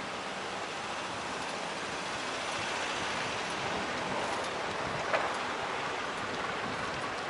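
Steady rushing wind and road noise on a bicycle-mounted action camera while riding, with one sharp click about five seconds in.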